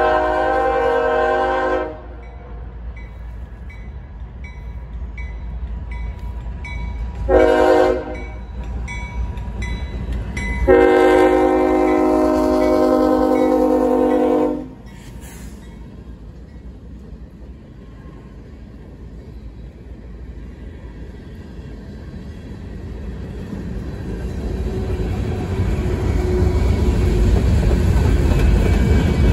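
CSX freight locomotive's air horn blowing for a grade crossing: a long blast, a short one, then a final long blast of about four seconds. A steady rail rumble follows and grows louder near the end as the locomotive and covered hopper cars roll past.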